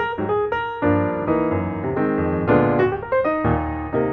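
Background piano music, a run of notes struck one after another.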